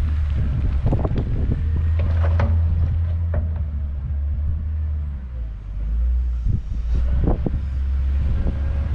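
Wheel loader's diesel engine running with a steady low rumble; it eases off a little past the middle and then picks up again. Scattered knocks and wind buffeting on the microphone are heard over it.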